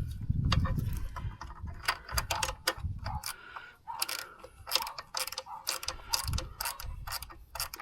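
Cut-down 13 mm ratcheting wrench clicking in quick runs of strokes while a nut is worked loose on its stud.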